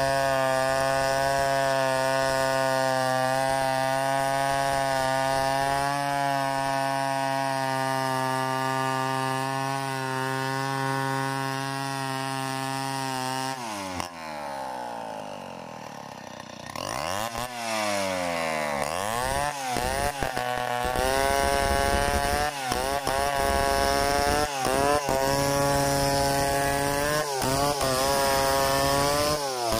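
Stihl 070 two-stroke chainsaw ripping a log lengthwise at steady full throttle. About 14 s in, the engine falls to idle. It is then revved up and down in quick blips before running steadily at high revs again, with brief dips.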